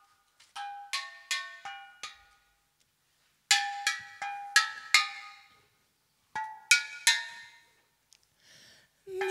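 A mallet-struck hand percussion instrument played in three short runs of quick, pitched notes. Each note starts sharply and rings briefly, with short silences between the runs.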